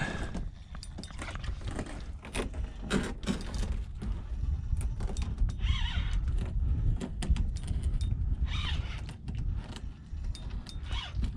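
Wind buffeting the microphone with a low rumble, over scattered clicks and knocks from handling a spinning rod and reel in a kayak during a fight with a fish. There are two short squeaky scrapes, about six and nine seconds in.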